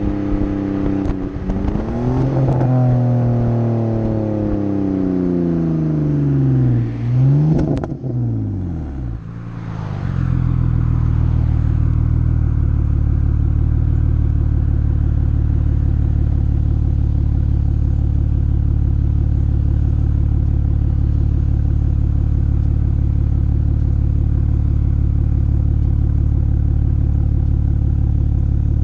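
BMW exhaust recorded right at the tailpipe: the engine is blipped twice, each rev rising quickly and falling away slowly with crackles and pops on the overrun. About ten seconds in it settles into a steady idle.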